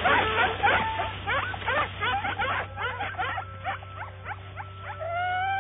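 Several dogs barking and yipping in many short, overlapping calls that thin out after about three seconds. Near the end, a long held pitched tone begins.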